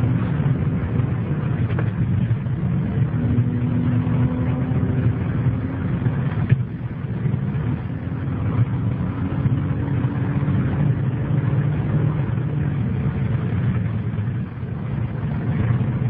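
Car engine and road noise heard from inside the cabin at highway speed: a steady low rumble with a faint engine tone that comes up about three seconds in and again around eight seconds.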